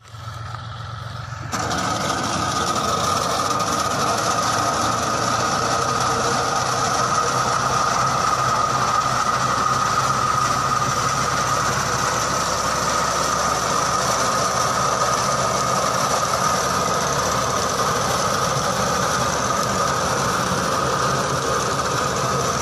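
John Deere tractor's diesel engine running steadily under load while its front-mounted reaper cutter bar cuts tall fodder grass, with a steady high whine over the engine. It grows sharply louder about a second and a half in, then holds even.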